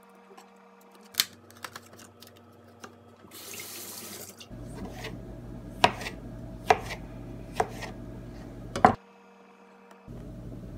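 A kitchen tap runs briefly as cherry tomatoes are washed. Then a kitchen knife slices the tomatoes on a plastic cutting board: four sharp knocks of the blade on the board, about a second apart.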